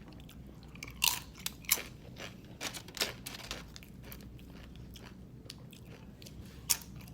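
Close-up chewing and crunching of food. Scattered sharp crunches stand out about a second in, twice more over the next two seconds, and once near the end.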